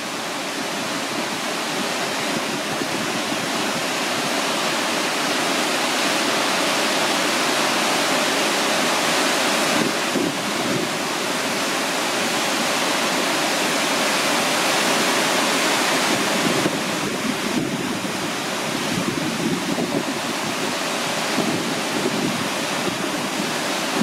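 Wide waterfall of several strands plunging over a rock ledge into a plunge pool: a steady, loud rush of falling water that swells a little in the middle.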